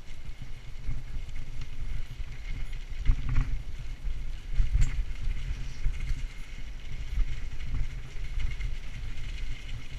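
Bicycle riding along a leaf-covered dirt trail: a low, uneven rumble of tyres on the ground and air buffeting the camera microphone, with jolts and rattles over bumps about three and five seconds in.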